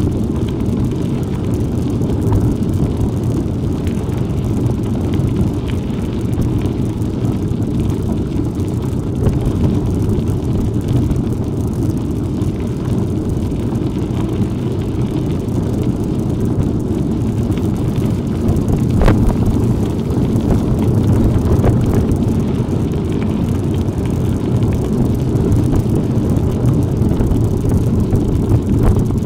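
Steady low rumble of wind buffeting the microphone and bicycle tyres running over rough off-road ground while riding, with one sharp click about 19 seconds in.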